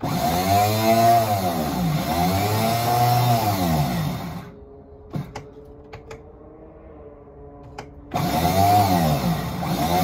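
Starter motor of a Crusader inboard marine engine cranking the engine in slow, uneven surges as the battery switch is turned on. It stops about four and a half seconds in, leaving a steady hum and a few clicks, then starts cranking again a little after eight seconds. The starter runs the moment power is switched on, even with a new starter relay fitted: an electrical fault the owner has not yet found.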